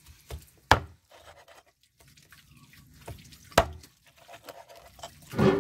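A meat cleaver chopping a chicken into pieces on a board: two sharp chops about three seconds apart, with small clicks between them. A short louder sound comes near the end.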